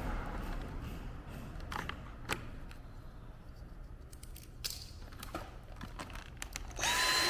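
Plastic clicks and knocks as parts of a Dyson cordless stick vacuum are handled and fitted together, then near the end the vacuum's motor switches on and runs with a steady high whine.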